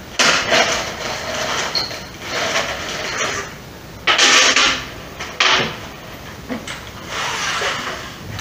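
Hands handling screws on the top of a white melamine cabinet box: several short bursts of scraping and rustling, the loudest about four seconds in.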